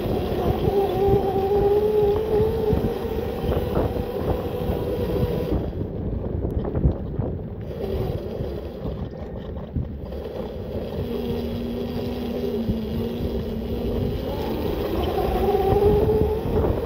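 A 1500 W electric bike's motor whines under way, its pitch drifting up and down with speed. Heavy wind rumble on the microphone runs underneath. The whine fades about halfway through and comes back near the end.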